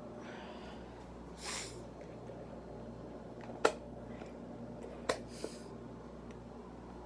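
GE microwave oven running, a steady low hum while it heats milk. A short breathy noise comes about a second and a half in, a loud sharp click a little past halfway, and two fainter clicks about five seconds in.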